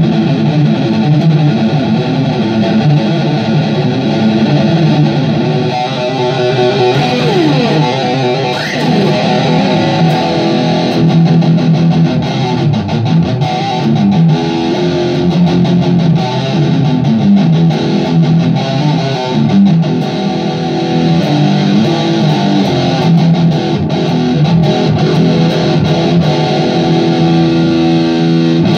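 Electric guitar played through a Vox 20+ hybrid valve-and-digital amp on its distortion channel: a continuous overdriven run of sustained notes and riffs, with a rising slide about eight seconds in.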